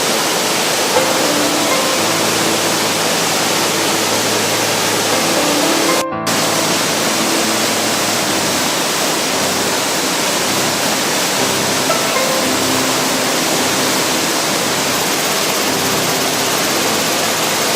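A waterfall's water pouring down in a steady, dense rush. The sound cuts out for a split second about six seconds in, then resumes unchanged.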